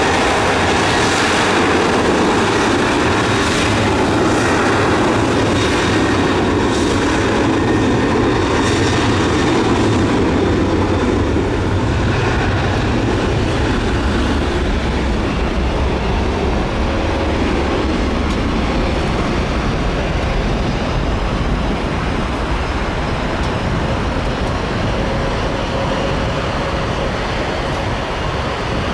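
Jet airliner's engines at high power, a loud steady rumble with a faint whine over it, easing slightly toward the end.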